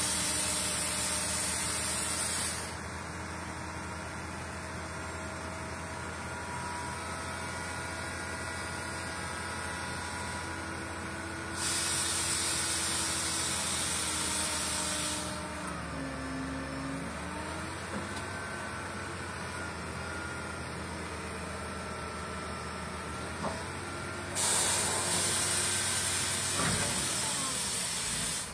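Heavy diesel engines of a Caterpillar 320 tracked excavator and a hook-lift truck running steadily, with the pitch sagging and recovering briefly about halfway as the machines take the load of loading. Three spells of loud hissing a few seconds long come and go abruptly: at the start, around the middle, and near the end.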